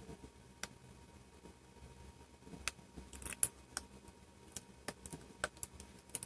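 Small, irregular clicks and taps of a laptop display's video cable connector being pushed into the back of a replacement LCD panel and handled.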